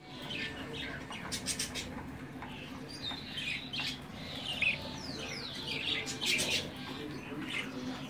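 Young budgerigar chicks calling: irregular high-pitched raspy squeaks and chirps, with a few short calls that fall in pitch.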